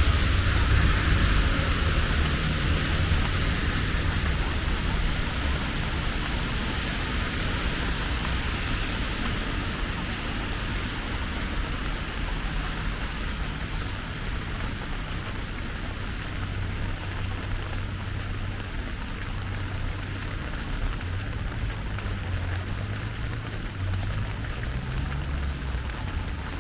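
Steady rain falling, a hiss with a low rumble underneath; the hiss eases a little over the first dozen seconds.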